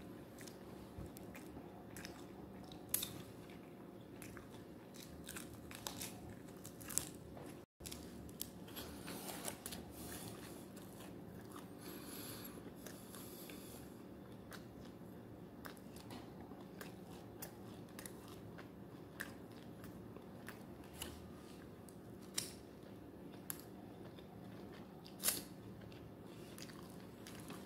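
Close-miked chewing and biting of fried chicken wings: mouth sounds with scattered short crunchy clicks, a few of them much louder, over a low steady hum.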